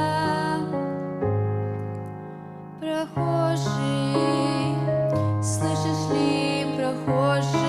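Soft hymn music on piano and keyboard, with held chords under a melody line. It fades out about two seconds in and picks up again a second later.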